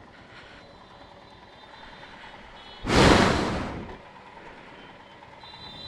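Road traffic noise with a loud rushing whoosh of a vehicle going past close by, about three seconds in, fading away over a second.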